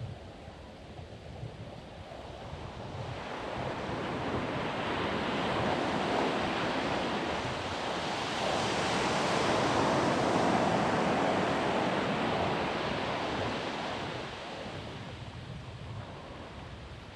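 Ocean surf on a beach: a wave builds from a few seconds in, breaks and washes up, then fades near the end. Some low wind rumble on the microphone underneath.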